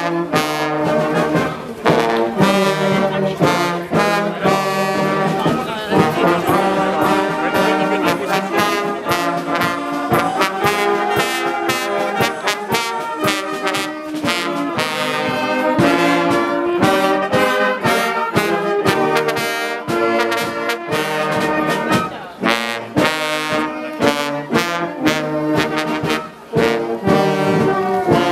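Brass band music playing, with voices underneath.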